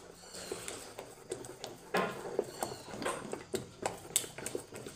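Spoon beating eggs into a flour-and-sugar batter in a stainless steel bowl, with irregular clinks of the spoon against the bowl and wet squelching of the batter.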